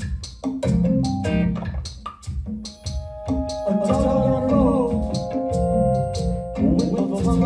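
Live band music heard from the audience floor: quick percussive hits over pitched bass notes, with held steady tones and sliding pitches joining about halfway through.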